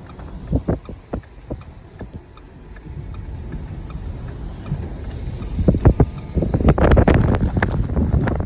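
Car driving on a snow-covered road: low rumble of tyres and engine with scattered thumps, growing louder and rougher in the second half.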